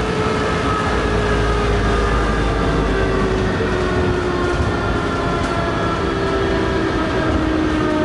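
Taipei Metro Matra VAL 256 rubber-tyred train in motion, its traction drive giving several steady whining tones over the running noise. The tones fall slowly in pitch as the train slows. The uploader presents this whine as an abnormal inverter noise.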